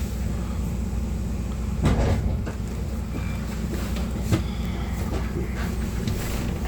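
Bus engine running steadily with a low rumble, heard from inside the bus, along with rattles and sharp knocks from the cabin, the loudest about two seconds in and another just past four seconds.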